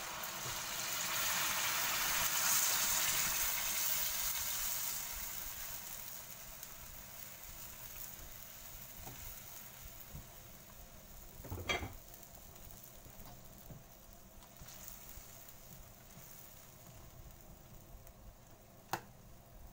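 Hot water poured into a hot wok of browned pork belly, sizzling loudly for a few seconds and then dying down to a quieter simmer. Two sharp knocks, one about midway and one near the end.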